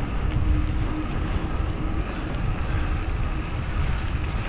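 Wind buffeting the microphone of a GoPro on a moving bicycle, a steady low rumble with the rolling noise of the ride underneath. A faint steady hum runs through the first two seconds.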